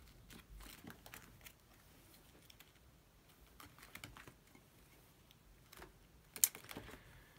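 Plastic sleeve pages of a ring binder being turned by hand: quiet crinkles and light clicks, with one sharper click about six and a half seconds in.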